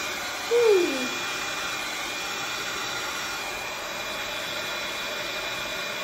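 Heat gun running steadily, a constant blowing hiss with a faint steady whine. A brief falling vocal sound comes about half a second in.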